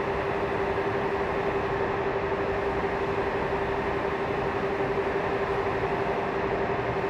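Stationary trains idling at the platform: a steady mechanical hum with one constant tone in it.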